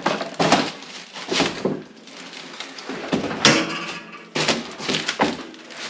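Irregular metal clunks, knocks and scrapes of snowplow mounting hardware being handled, the sharpest about three and a half seconds in.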